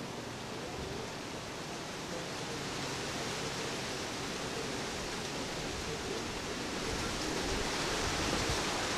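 Steady outdoor background hiss, even and unbroken, getting slowly a little louder toward the end.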